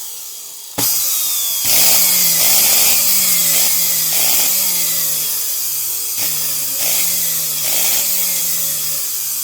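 Blender motor switching on abruptly about a second in and running loud and steady, its hum wavering in pitch as it works.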